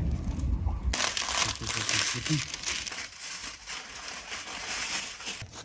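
Aluminium foil being crumpled and crinkled by hand as it is wrapped around food, from about a second in until near the end. Before that, a wood fire burning in a ground pit gives a low rumble.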